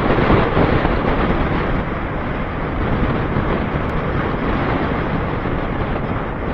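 Steady wind rush on the microphone from riding a motorcycle at road speed, with the Bajaj Avenger 220's engine running underneath.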